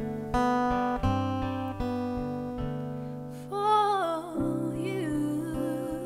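Acoustic guitars picking a slow, gentle ballad introduction, each note ringing and fading. A woman's singing voice comes in about three and a half seconds in, with a light vibrato over the guitars.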